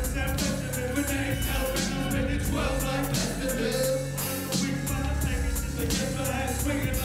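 Live hip hop through a club PA: a rap vocal over a backing beat with heavy bass and a steady drum pattern.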